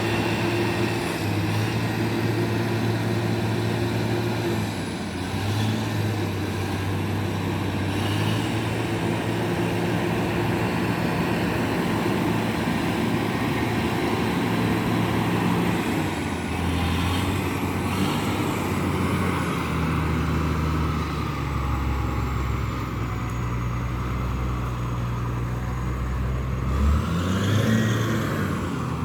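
Heavy diesel engine of road-repair machinery running under changing load, its revs stepping up and down every few seconds, with a brief rev up and back down near the end.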